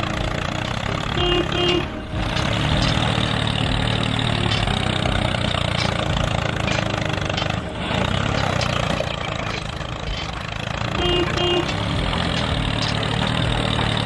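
Remote-control toy excavator's sound effects: a steady diesel-engine rumble as it slews and swings its arm, with short beeping about a second in and again near the end.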